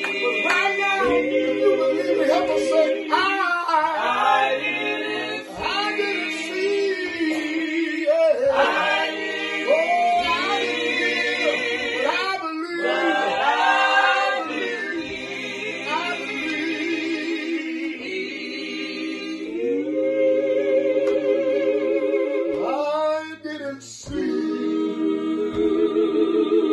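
A small group of men and women singing a hymn together unaccompanied, in slow, long-held notes with phrase breaks.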